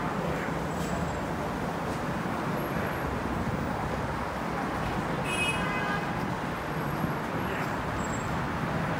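Steady roadway traffic noise, with a brief high-pitched tone about five seconds in.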